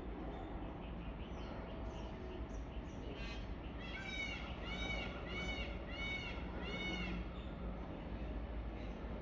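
Peacock (Indian peafowl) calling: a short rasping note about three seconds in, then a quick run of five loud notes, each rising and falling in pitch, about one every 0.7 seconds. Faint chirps of other birds sound around it.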